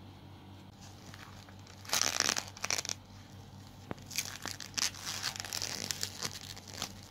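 Plastic cling film crinkling and tearing as fingers pull it off a wrapped container, in two bouts of rustling: one about two seconds in, and a longer one from about four seconds in.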